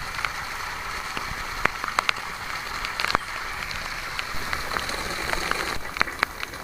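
Rain falling steadily, with scattered drops tapping sharply on hard surfaces.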